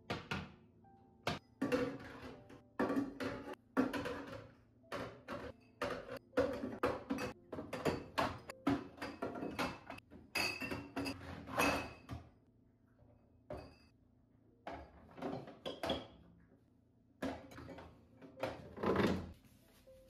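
Plastic food containers knocked and set down on glass refrigerator shelves, and glass mineral-water bottles clinking against each other as they are slotted into the door bin: a string of irregular clatters and knocks, with a few ringing glass clinks about halfway through.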